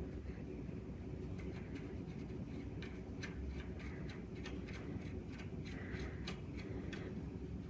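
Light clicks and rubbing as the two threaded pieces of a Lisle pedal depressor are screwed together by hand.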